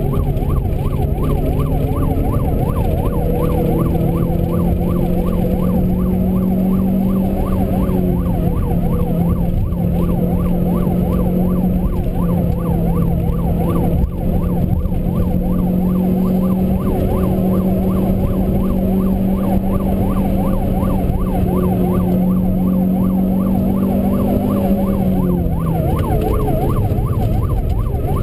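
Renault Clio 2.0 16V four-cylinder engine, heard from inside the cabin, driven hard along a hill-climb course. The revs step up about four seconds in, hold steady for most of the run and fall away near the end. A regular wavering whine rides over the engine note.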